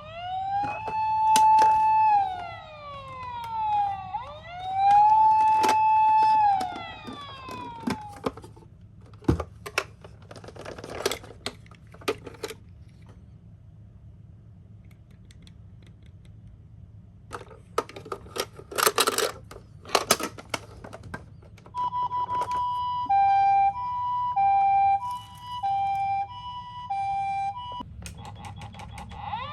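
Electronic siren sounds from toy ambulances. It opens with two wailing sweeps that rise, hold and fall, then several seconds of clicks and clattering. Near the end comes a steady high-low two-tone "pee-po" ambulance siren, and a new wail begins just at the close.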